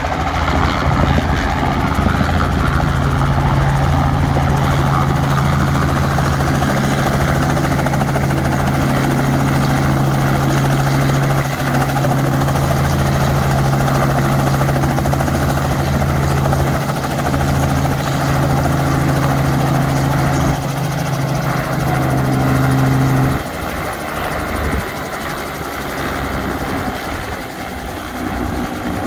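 Light helicopter landing and idling on its skids, rotor and engine running with a steady low beat. About 23 seconds in, the steady tone stops abruptly and a quieter sound is left as the rotor winds down.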